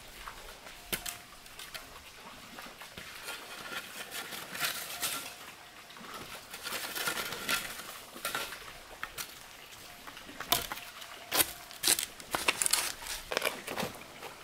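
Steel shovel digging into loose red soil: crunching scrapes of the blade through dirt, with a run of sharper, louder strikes and scrapes in the second half.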